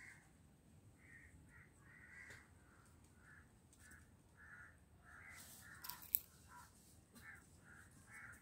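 A bird calling over and over in short, faint notes, about two a second. Two sharp clicks stand out about six seconds in.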